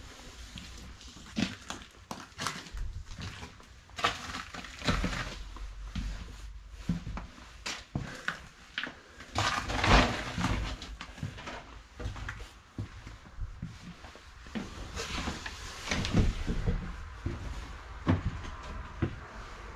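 A string of irregular crunches and knocks close to the microphone, about one every half second to second, loudest about halfway through, over a low rumble.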